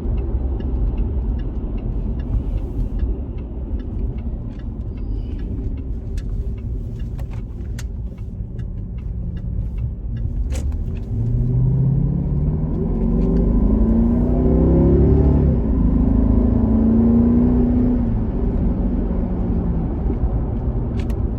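2011 Jaguar XF being driven, heard from inside the cabin: a steady low road and engine rumble, with the engine note rising as the car accelerates from about eleven seconds in, then holding steadier. The cabin is free of the headliner rattle, which the owner traced to loose sunroof bolts and cured by refitting them.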